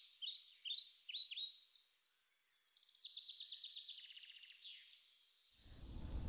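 Birds singing faintly: a run of short, falling chirps repeated a few times a second, then a fast trill from about two seconds in that fades out near the five-second mark. A low background rumble comes in near the end.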